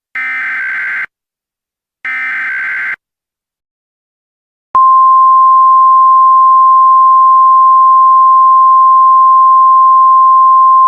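Emergency Alert System SAME header data bursts, two short buzzy squawks about a second apart. About five seconds in, a loud, steady single-pitch NOAA Weather Radio 1050 Hz warning alarm tone starts, signalling that an emergency message follows.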